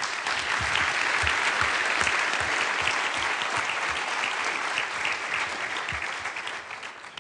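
Audience applauding, a dense steady patter of many hands clapping that tapers off near the end.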